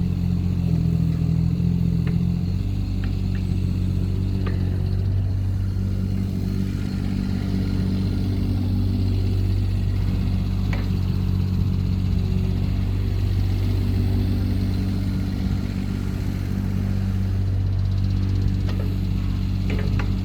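Hanix H22B mini excavator's L3E three-cylinder diesel engine running steadily, with a few light clicks now and then.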